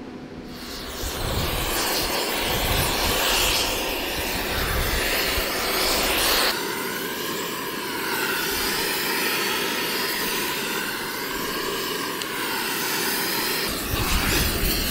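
Gas heating torch burning with a steady rushing noise as its flame heats the bore of a StuG III's differential housing. The noise changes abruptly about six seconds in and swells again near the end.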